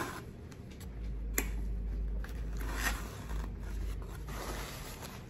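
Eating and handling noises: a fork and fingers scraping and rubbing against a foam takeout container, with a sharp click about a second and a half in and a low rumble through the middle.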